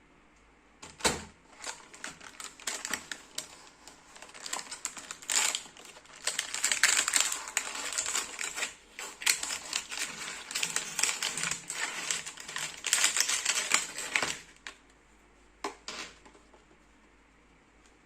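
Rapid, irregular clicking and crinkling of a plastic selfie stick and its packaging being handled. It starts about a second in and stops a few seconds before the end, with two more sharp clicks shortly after.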